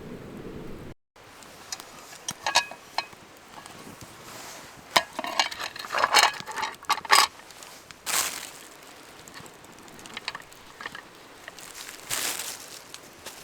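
Scattered clicks, clinks and rustles of objects being handled, busiest around the middle, with two short swishes later on.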